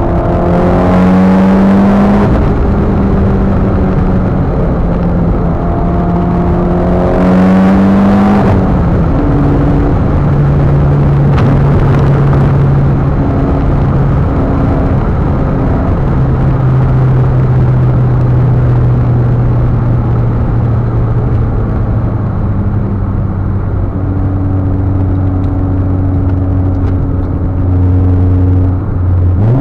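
Mitsubishi Lancer Evolution X's turbocharged four-cylinder engine heard from inside the cabin. It pulls hard twice in the first eight seconds or so, rising in pitch with a loud rushing hiss each time, then cruises at steady revs. Near the end the revs drop and climb again through a gear change.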